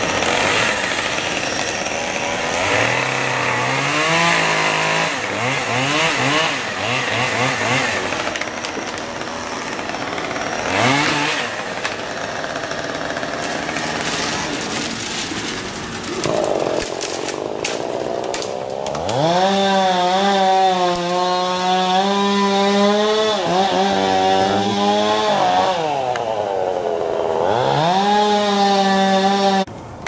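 Chainsaw engine revving in short bursts, then held at high speed for several seconds at a time with brief drops in between, over the last third.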